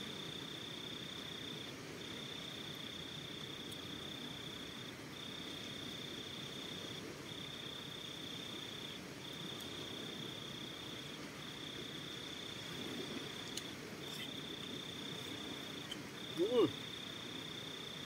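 Night insect trilling in long, even trills of one to two seconds with short breaks between them, over a steady low background noise. A brief voice-like sound about two seconds before the end.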